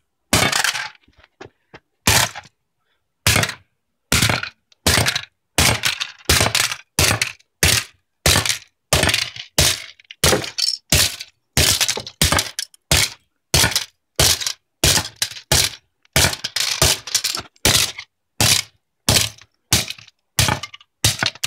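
A Draytek Vigor 120 ADSL modem's plastic case being smashed to pieces on concrete, with dozens of sharp cracking blows at about one to two a second, coming faster in the second half.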